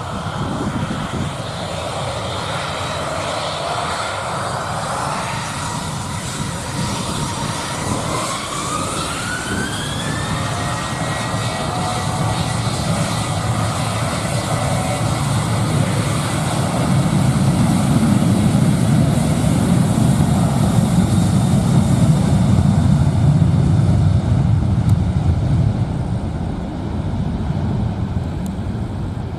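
Jet airliner engines spooling up: a whine rises in pitch about eight seconds in and then holds steady. A louder low rumble follows, strongest in the second half, and fades near the end.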